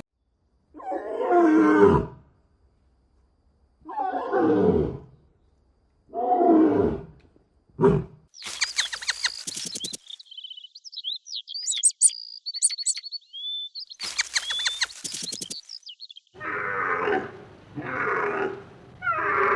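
Animal calls: three calls of about a second each, every one falling in pitch, and a short fourth call. Then high chirping with some clicky noise in the middle, and a quicker run of calls near the end.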